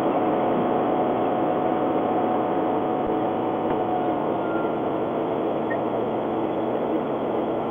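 Nissan Qashqai 2.0 CVT under way: steady road and drivetrain noise with a thin, steady high whistle that fades out about halfway through. The owner suspects this whistle at high revs is a fault in the CVT gearbox.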